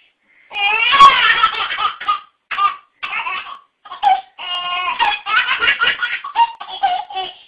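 A baby laughing hard in a run of belly laughs and giggles, broken by short pauses.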